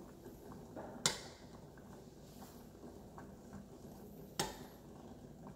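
Metal fork clinking against a stainless steel saucepan while prodding potato chunks in hot water to test whether they are fork tender: two sharp clinks, about a second in and near the end, with fainter ticks between.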